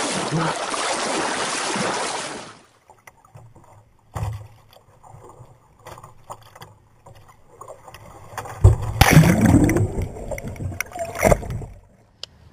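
Water rushing and splashing along a moving boat, cutting off sharply about two and a half seconds in. Then a quieter stretch with scattered small knocks, and about nine seconds in a louder stretch of rushing noise and thumps that lasts about three seconds.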